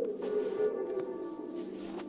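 A steady, ringing tonal drone of several held pitches, with soft crunches of footsteps in snow over it, one about a quarter second in and another near the end.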